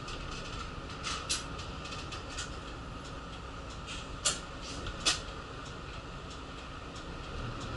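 Cabin noise inside a moving city bus: steady engine and road rumble with the interior fittings rattling and creaking, and two sharp clacks a little over four and five seconds in.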